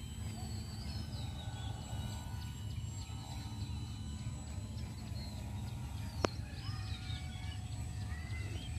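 Faint steady hum of a small RC plane's brushless electric motor and 12-inch propeller as it flies low past, with birds chirping over a low wind rumble. A single sharp click comes about six seconds in.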